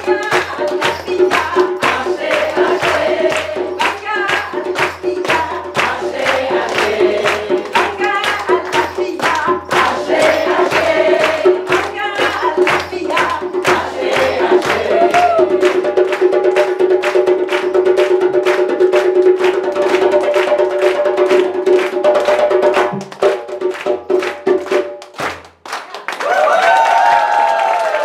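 Live group singing of a welcome song with steady rhythmic hand clapping and a held note underneath. The music fades out about 25 seconds in and a voice follows near the end.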